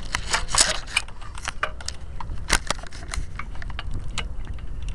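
Irregular sharp clicks and knocks over a low rumble: handling noise from a camera being moved and swung about.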